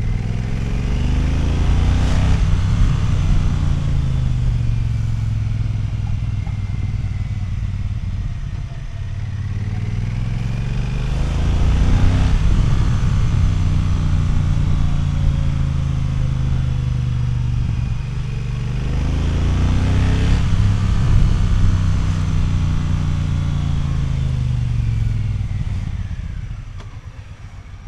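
Triumph Thunderbird 1600cc parallel-twin motorcycle engine being revved under acceleration. The engine note rises and falls away three times, each run lasting about eight seconds, and the engine goes quieter near the end.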